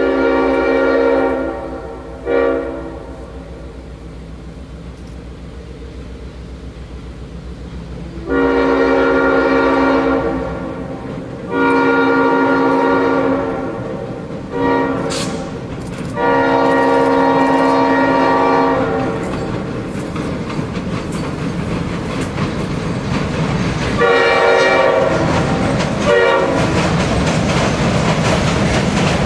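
EMD GP7 locomotive's Leslie S5T air horn blowing repeatedly as the train approaches, including a long-long-short-long crossing signal. Under it, the rumble of the train and the clickety-clack of wheels on the bridge grow louder toward the end.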